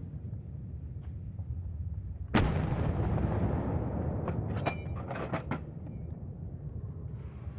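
A single hunting rifle shot about two seconds in, its report rolling on and dying away over a couple of seconds, followed by a few short sharp clicks.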